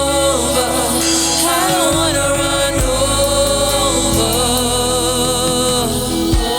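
Gospel worship music: voices singing a melody over a band with sustained bass notes.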